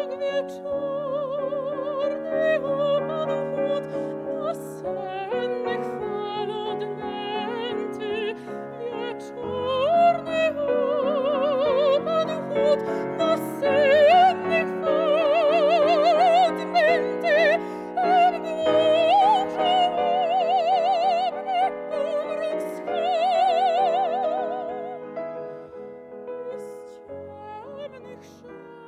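A female opera singer sings with a wide vibrato, accompanied on a grand piano. The voice swells loudest through the middle and grows softer near the end.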